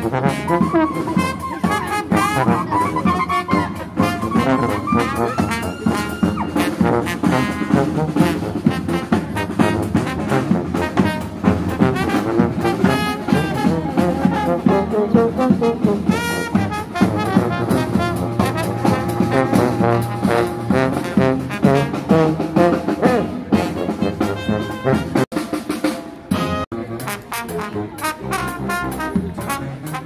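Brass band music with trombone and trumpet over drums, in a jazzy style, briefly dipping near the end.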